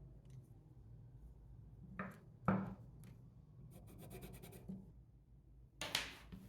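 Light handling sounds of small wood pieces at a workbench over a low steady hum: two light knocks about two seconds in, a quick run of ticks midway, and a scrape near the end.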